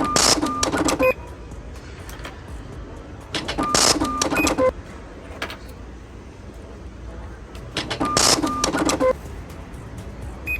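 Cash register sounding at checkout three times, about a second in, around three and a half seconds and around eight seconds. Each time it gives a short clatter of clicks with brief beeping tones.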